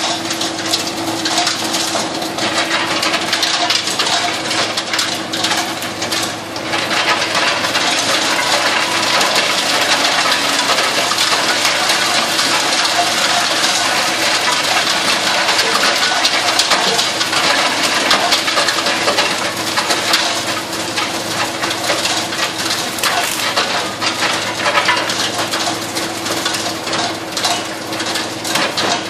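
Heizohack 6-300 drum wood chipper, driven by a Valpadana tractor, chipping crane-fed brush and branches: a dense crackle of snapping, splintering wood over a steady hum, with chips rattling out of the discharge spout.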